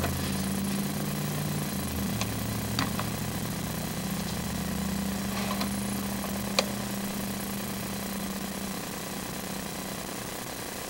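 An engine idling steadily, its hum shifting a little about two seconds in and easing off near the end, with a few light clicks.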